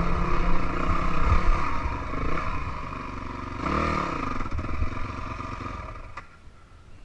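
Dirt bike engine running at low revs on a rocky downhill trail, with a short rev blip about four seconds in, and rattle and scraping from the bike over stones. The sound drops away about six seconds in.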